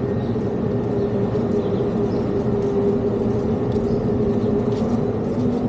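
A steady motor hum holding one pitch, with background noise under it.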